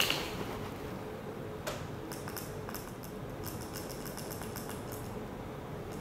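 Small tactile push-buttons on a robot's circuit board clicking as a program is keyed in: a knock of handling, then a quick irregular run of about a dozen light, high clicks.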